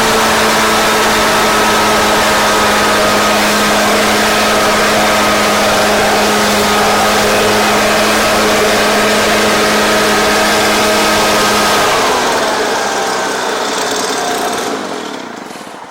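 Husqvarna backpack leaf blower's two-stroke engine running at a steady high speed, held there by the new throttle lever's cruise control. About twelve seconds in, the pitch drops and the engine winds down and fades away.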